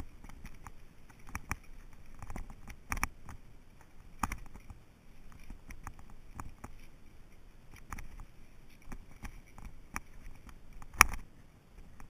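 Irregular footsteps and scuffs on a dry grassy dirt path, mixed with clicks and knocks of a handheld action camera being moved, with the loudest knock about 11 seconds in.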